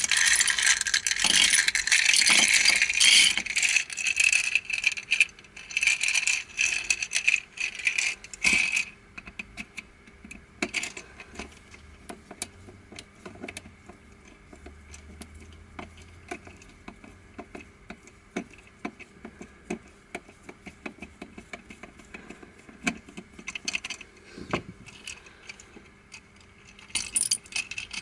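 Black plastic pieces of a Crazy Octahedron Plus twisty puzzle clattering and rattling against each other as the puzzle is pulled apart by hand, dense and loud for about the first nine seconds. After that come scattered light clicks and taps as the core is worked on with a screwdriver, and another short clatter of pieces near the end.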